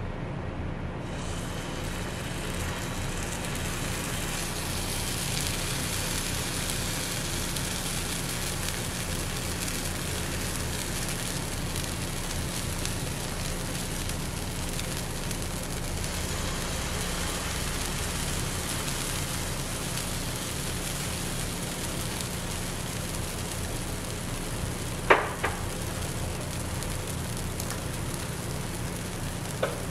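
Pancake batter sizzling on a hot electric pancake griddle set to 350°F, a steady hiss that fills in about a second in as the batter is poured, over a steady low hum. A single sharp tap about 25 seconds in.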